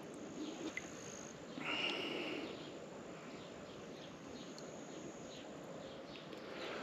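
Faint outdoor ambience, with a brief high-pitched call about two seconds in.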